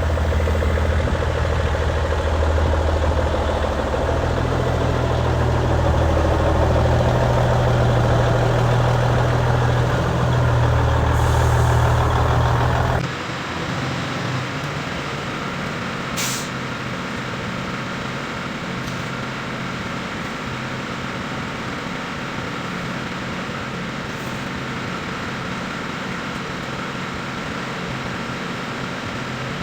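Heavy diesel truck engine running with a loud, steady low drone. About halfway through it drops abruptly to a quieter steady running sound, with a couple of short air hisses from the truck's air system.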